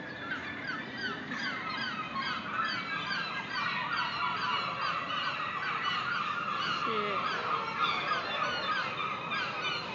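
A flock of agitated birds calling nonstop: many short, overlapping, downward-sliding cries that blend into a continuous chorus. These are the alarm calls of parent birds whose chicks are being handled on the ground.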